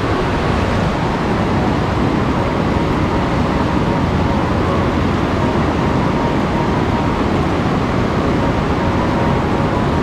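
River water rushing over rock ledges in a set of rapids: a loud, steady, unbroken rush.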